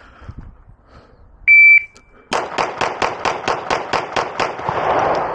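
Shot timer's start beep, then a rapid string of about twelve 9mm pistol shots from a Beretta APX A1 Compact Tactical, roughly 0.2 s apart, the first coming just under a second after the beep. This is the last magazine being fired dry, about three seconds from beep to last shot.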